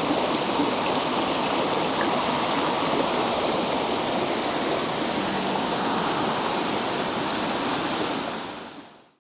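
Rushing stream tumbling over rocks, a steady roar of white water that fades out near the end.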